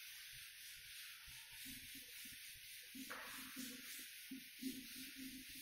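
Blackboard duster wiping chalk off a chalkboard in faint, repeated rubbing strokes, coming thicker and faster in the second half.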